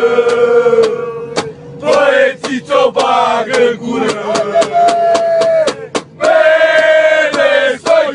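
Music with male voices chanting in long held notes over sharp drum hits.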